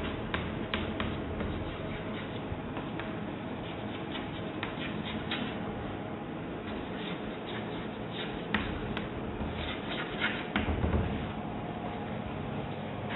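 Chalk writing on a blackboard: scattered light taps and short scratches as letters are written, busiest a little past the middle, over a steady background hiss.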